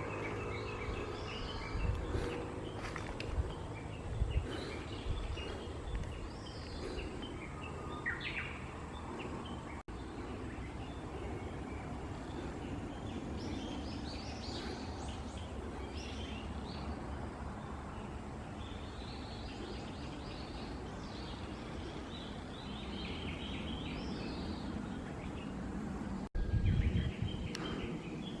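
Small birds chirping and calling over a steady outdoor background hiss, with a brief loud low rumble near the end.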